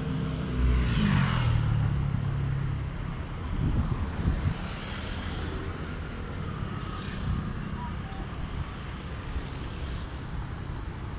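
Street traffic: a vehicle passes near the start, its engine note falling, followed by a steady hum of traffic.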